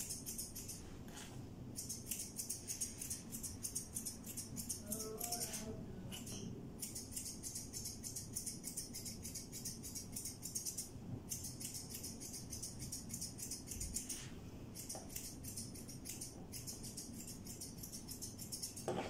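Grooming scissors snipping rapidly through a long-haired cat's fur, in runs of quick cuts broken by short pauses.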